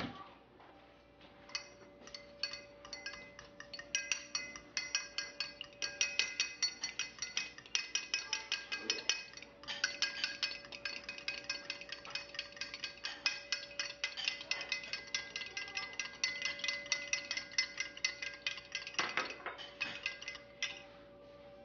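Metal spoon beating eggs in a glass measuring cup, clinking against the glass about four times a second with a short pause partway through.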